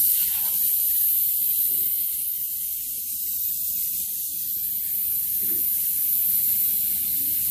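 Air hissing steadily out of a semi-trailer tire as its pressure is bled down.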